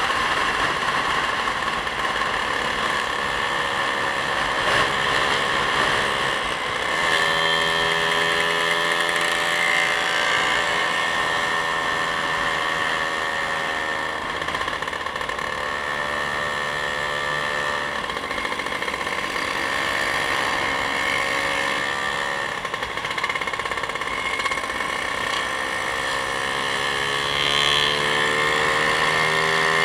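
A road vehicle's engine running under way, its note slowly rising and falling with speed, over a steady rush of wind and road noise.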